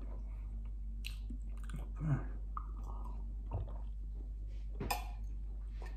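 A man chewing food and drinking from a glass of water, with soft mouth noises and a few short clicks over a steady low hum.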